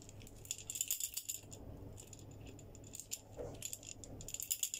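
Beads and dangling charms on a decorated glass candle jar clinking and rattling against the glass as the jar is handled, in two short clusters: one about a second in and one near the end.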